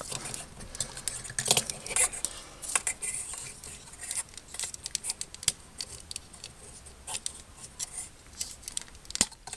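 Hard plastic model-kit parts clicking and scraping as a stiff shoulder armor piece is pushed onto a Master Grade Duel Gundam Assault Shroud model: an irregular run of small sharp clicks.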